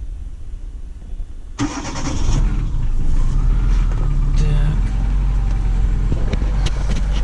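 Daewoo Sens car engine being started with its newly replaced starter and battery: the starter cranks briefly about a second and a half in, the engine catches and settles into a steady idle.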